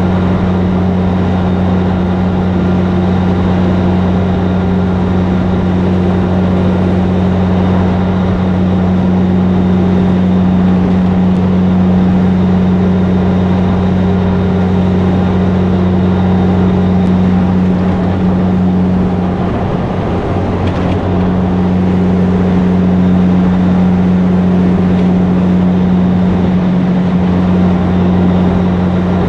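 Peterbilt 362 cabover's Caterpillar 3406B inline-six diesel engine running steadily at highway cruising speed, a deep even engine note with road noise, wavering and dipping briefly about two-thirds of the way through.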